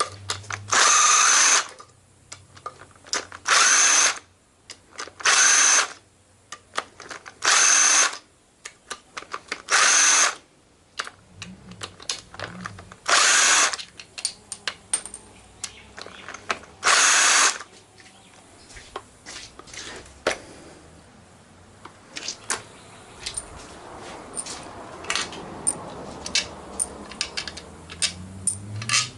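A handheld power drill-driver run in seven short bursts of about a second each, spread over the first two-thirds, then small metallic clicks and taps of parts being handled.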